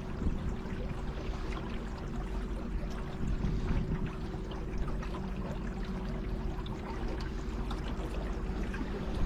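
Water trickling and lapping against a small boat's hull as it moves along the river, with a faint steady hum underneath.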